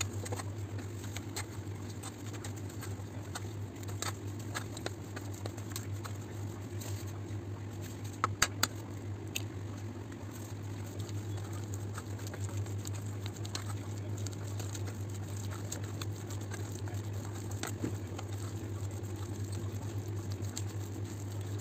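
Plastic spoon stirring and mashing a soft potato fritter mixture in a stainless steel bowl: soft wet patter with scattered light clicks of the spoon against the bowl. A couple of sharper knocks come about eight seconds in, and a steady low hum runs underneath.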